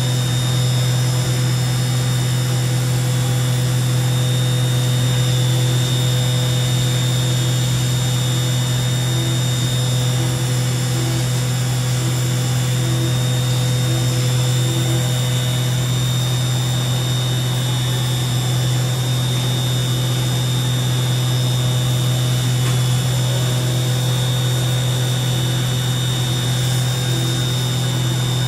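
OKK VM5-11 vertical machining center running under power: a steady low hum with a steady high whine above it, unchanging throughout.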